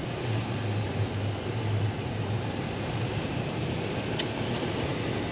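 Car heard from inside the cabin while driving on a snowy road: steady engine and tyre noise, with a low engine hum that fades after about two seconds. A single short click about four seconds in.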